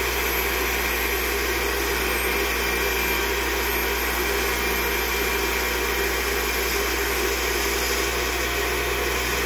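Toolpost grinding wheel grinding a steel crankshaft's crank pin journal as the crank turns in a lathe: a steady grinding hiss over the electric motors' hum. The damaged rod journal is being reground to a half-millimetre undersize.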